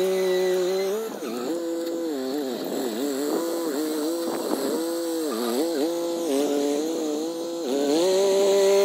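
Tractor engine working under load as it ploughs. About a second in its pitch drops and then keeps dipping and recovering again and again, as the load from the implement rises and falls. Near the end it settles back to a steady pitch.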